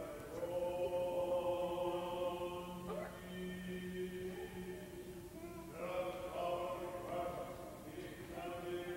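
Greek Orthodox liturgical chant sung in a church: voices holding long notes over a steady tone, with a brief break about five seconds in before the chant picks up again.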